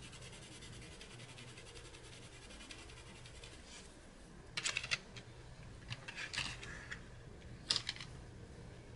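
Black Widow Monarch colored pencil's hard wax-based lead scribbling rapidly back and forth on paper as a swatch is filled in, stopping about three and a half seconds in. Then a few short, sharp clacks of pencils being handled, the loudest about halfway through.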